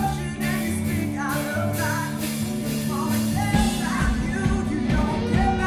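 A man singing a rock song with a band; a steady drum beat comes in about halfway through.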